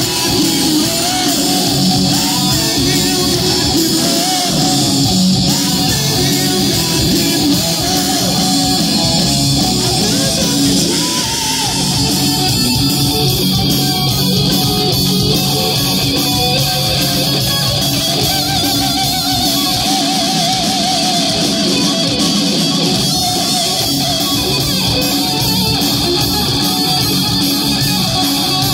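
A live rock band playing loudly, electric guitars and bass guitar to the fore. A lead guitar line with wavering, bent notes runs over the band.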